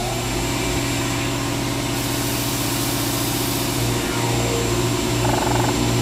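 A steady, loud, machine-like drone with a strong low hum and several steady tones above it.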